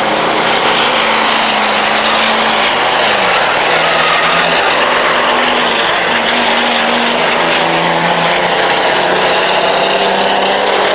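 Diesel racing trucks' engines running hard, a loud continuous drone whose pitch steps down about three seconds in and shifts again later, as at gear changes or easing off.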